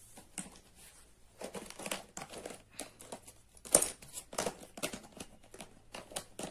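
Cosmetic sample packaging being handled, crinkling and rustling in irregular short bursts with light knocks, the sharpest click about four seconds in.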